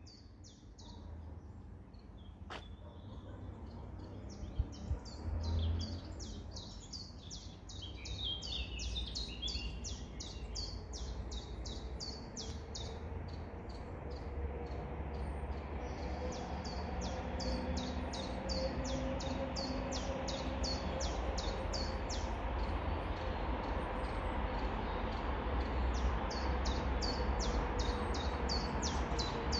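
A bird calling in long runs of short, high chirps that sweep downward in pitch, about three a second, with a couple of short pauses, over a steady low rumble.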